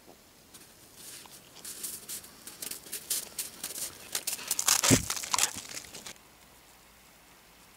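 A dog's paws crunching through crusted snow, the steps growing louder as it comes close, loudest with a low thump about five seconds in, then stopping suddenly.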